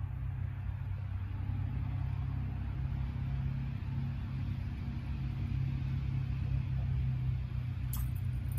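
A low, steady engine rumble.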